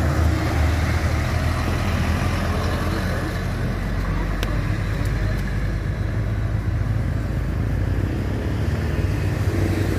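Road traffic passing close by on a busy road: a steady rumble of trucks and cars.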